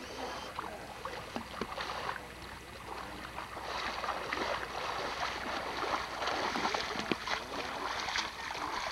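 Water sloshing and splashing around people standing waist-deep in a lake, growing louder about halfway through.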